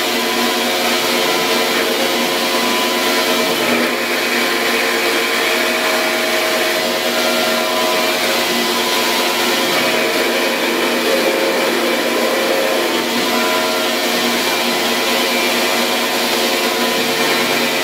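Grizzly G0602 10x22 lathe fitted with a CNC ballscrew conversion kit, running steadily with a motor whine made of several steady tones. Some of the tones shift to new pitches now and then, as the machine's drive changes speed.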